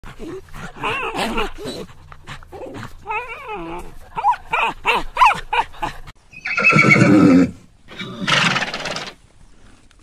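Horses neighing and whinnying repeatedly in short, fluttering calls, then one long, loud neigh about six seconds in and a rougher, breathier call near the end.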